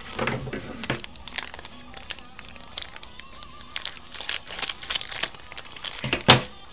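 Foil trading-card pack crinkling as it is handled and cut open with scissors, in a run of short crackles that thickens about four seconds in, with one sharp snap near the end. The foil pack is hard to open by hand.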